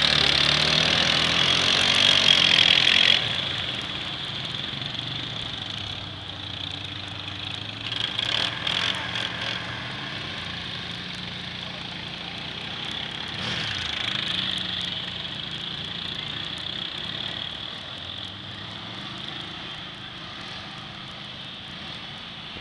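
ATV engines revving as four-wheelers churn through muddy water, with a hiss of spray. Loudest for the first three seconds as one passes close, then more distant, swelling again about eight seconds in and rising in a rev near fourteen seconds.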